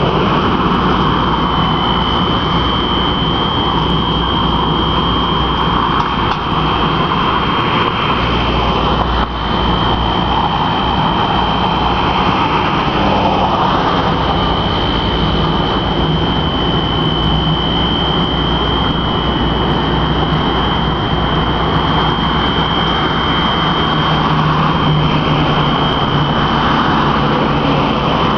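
Alarm of the kind used as a fire alarm, sounding continuously and loudly: one steady high tone over a dense, even noise.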